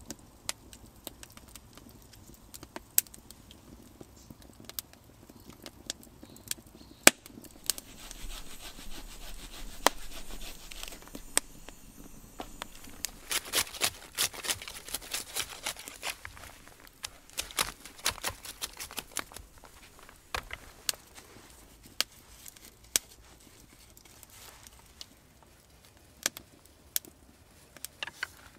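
Scattered sharp cracks and clicks of wood: a wood fire crackling in a clay oven, then thin sticks being cut, snapped and laid together by hand, with a dense run of cracks about halfway through.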